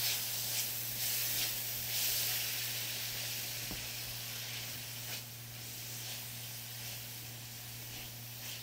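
Onions, peppers and spices sizzling in olive oil in a stainless skillet, just after red wine vinegar went in, hissing and slowly dying down while a spatula stirs them, with a few light scrapes against the pan.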